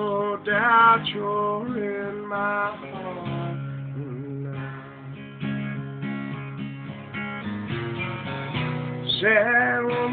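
Guitar being played: low notes held under a higher melody line whose notes bend and waver.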